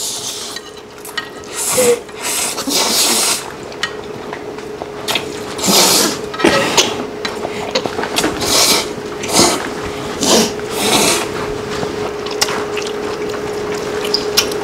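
People slurping jjapaguri (mixed Chapagetti and Neoguri instant noodles), a string of wet sucking slurps about one every second or so.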